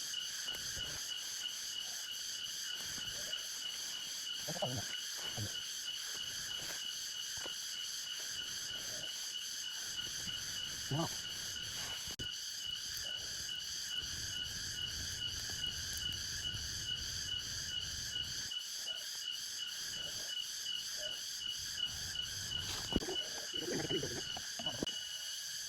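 Forest insects calling in a steady, evenly pulsing high-pitched chorus, with a few faint knocks and rustles underneath.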